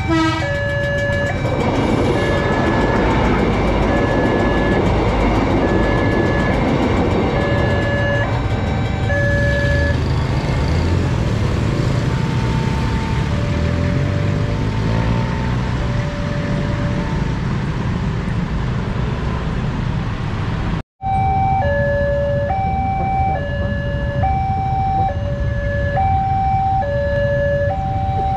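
Railway level-crossing alarm sounding an electronic two-note pattern, alternating between a low and a higher note with each held under a second, over a steady low rumble of motorcycle engines and traffic. The alarm stops about nine seconds in. After a brief dropout near the twenty-first second it is sounding again, alternating a little faster.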